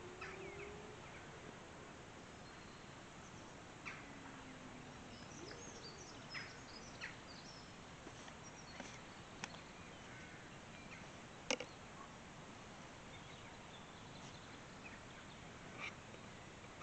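Small split-wood campfire crackling, with a few sharp, irregular pops, the loudest about two-thirds of the way through. Faint bird chirps sound in the background.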